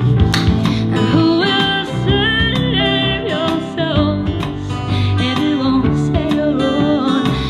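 Acoustic guitar-led song with a melodic line, played back through hi-fi bookshelf loudspeakers for a listening comparison.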